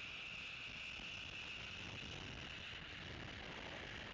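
Steady night chorus of insects, a continuous high-pitched trill, with a faint hiss beneath it.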